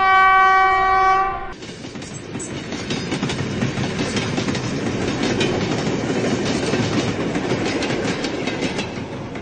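Model DF4 diesel locomotive's horn sounding one steady tone for about a second and a half, then the model train's wheels clattering over the track as it pulls a string of freight cars past.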